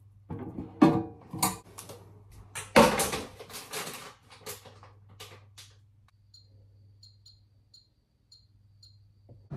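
Kitchen clatter of dishes and utensils being handled, with a few sharp knocks, the loudest about one and three seconds in. Then a run of six short high electronic beeps, about two a second, from a kitchen appliance's controls.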